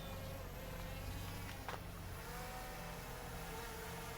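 DJI Mini 3 Pro quadcopter's propellers buzzing as it climbs, a steady whine whose pitch shifts slightly about halfway through. The left-side propeller blades are newly replaced and on their test flight.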